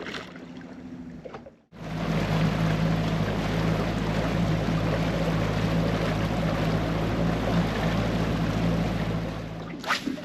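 A small boat's motor running at a steady speed while under way, with a rush of wind and water over it. It starts suddenly about two seconds in and stops just before the end.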